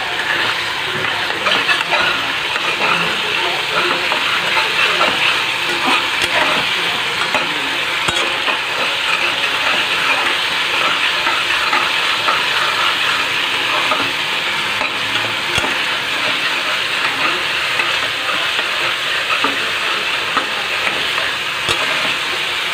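Thick spiced masala sizzling as it fries in oil in a pot, with a utensil stirring it and knocking against the pot now and then.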